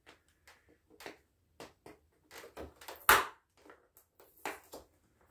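Clear plastic blister tray crinkling and clicking as bits of tape are picked and peeled off it: a string of short irregular crackles, with one louder crackle about three seconds in.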